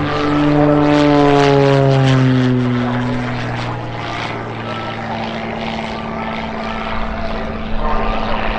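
Extra 330 aerobatic plane's six-cylinder piston engine and propeller in flight overhead. The drone falls in pitch over the first three seconds, loudest about a second in, then holds a steady lower note as the plane draws away.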